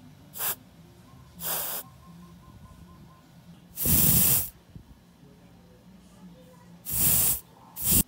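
Air hissing out through the torn rubber base of a scooter tyre's angled valve stem in five short bursts as the stem is flexed; the longest and loudest burst comes about four seconds in. The leak at the torn valve stem is what flattened the tyre.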